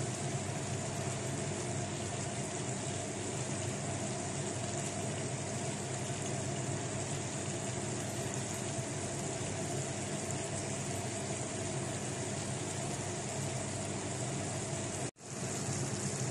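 Chicken pieces sizzling steadily in a frying pan, with a steady low hum underneath. The sound drops out briefly near the end.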